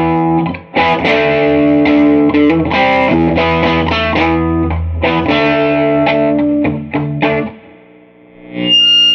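Telecaster electric guitar played through a Crate VC5212 Vintage Club 50 amplifier's overdrive channel at low gain and half volume: rhythmic chords and riffs with a light distortion. The playing stops about seven and a half seconds in, and there is one short sound near the end.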